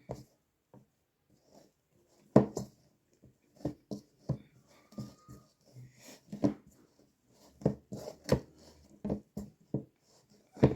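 Hands kneading sticky bread dough in a bowl: irregular soft thuds and slaps, about one or two a second.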